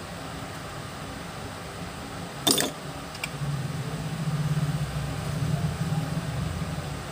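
A sharp click about two and a half seconds in, then a low mechanical hum that starts a second later and grows louder.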